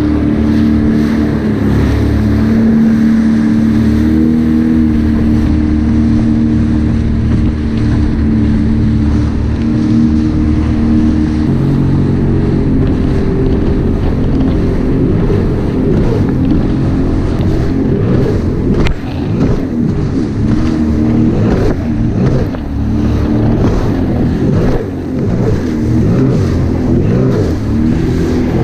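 Sea-Doo jet ski engine running at speed. For about the first twelve seconds it is a steady drone, then it rises and falls unevenly as the craft bounces over choppier water, with water splashing and wind on the microphone.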